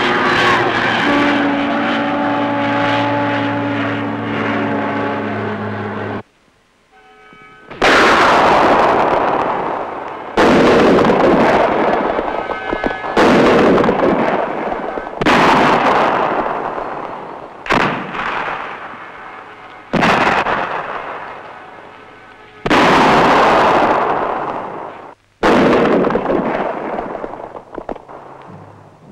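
Airplane engines droning steadily, cutting off about six seconds in. Then a series of eight heavy booms about two to three seconds apart, each loud at once and dying away slowly.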